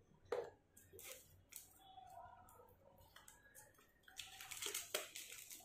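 Hands handling and opening a cardboard earphone retail box: scattered light clicks and rustles of the packaging, growing into denser crinkling near the end.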